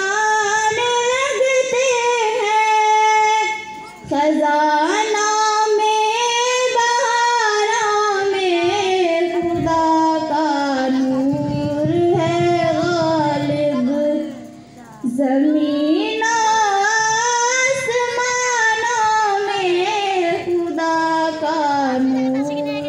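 A single high voice singing an Urdu hamd, a hymn praising God, in long, gliding, ornamented lines through a PA system. There are two short breaks for breath, about 4 seconds in and about 14 seconds in.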